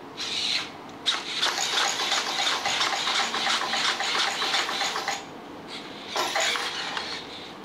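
Robosen Optimus Prime robot's servo motors whirring with rapid clicking as it steps around to turn, in two stretches with a short pause about five seconds in.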